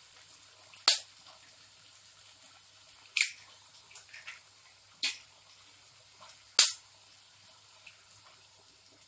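A steel spoon tapping eggshells to crack them open: a handful of sharp, short clicks a second or two apart.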